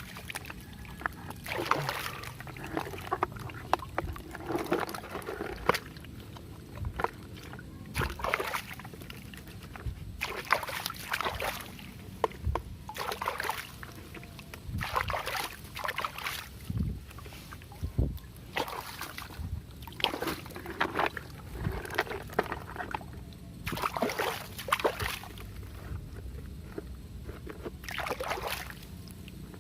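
Water sloshing and splashing in repeated bursts every second or two, with small clicks and knocks among them: toy cars being washed by hand in water.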